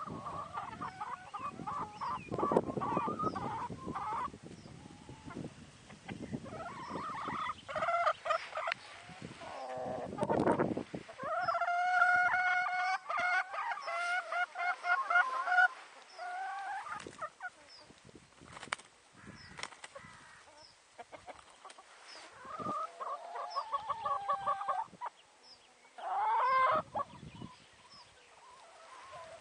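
Flock of free-range hens clucking and calling on and off, with a rooster crowing once in a long call around the middle.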